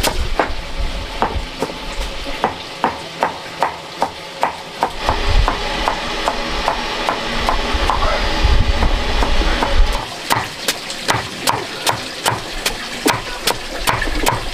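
A steady series of sharp knocks, about two to three a second, kept up with an even rhythm, with a low rumble underneath in the middle.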